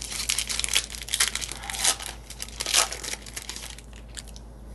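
Foil wrapper of a Yu-Gi-Oh! Ancient Guardians booster pack crinkling and tearing as it is ripped open by hand: a dense run of sharp crackles that dies down near the end.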